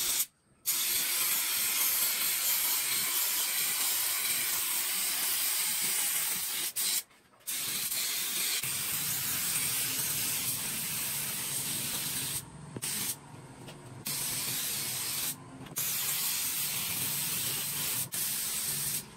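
Spray gun spraying a finish in a steady hiss, cut off briefly several times as the trigger is released and squeezed again. A low hum comes in about nine seconds in.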